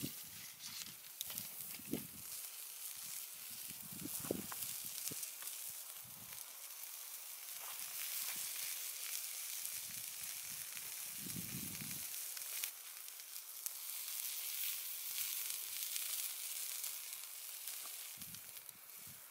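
Thin burger patties sizzling on a hot grill: a steady hiss flecked with fine pops, with a few soft low thumps.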